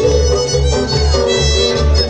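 Folk fiddle music: a violin plays a quick dance tune over a bass note sounding on each beat.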